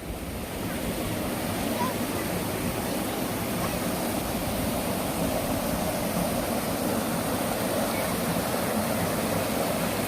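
Mountain stream water rushing over smooth bedrock, a steady wash of water noise that fades in during the first second.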